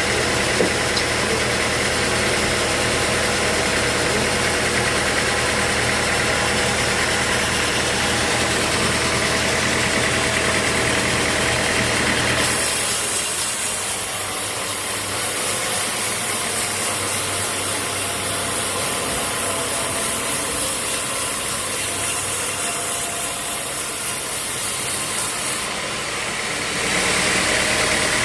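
Sawmill saw machinery running steadily with a low motor hum. About halfway through, the hum drops and a high hiss takes over for some seconds; near the end the hum returns.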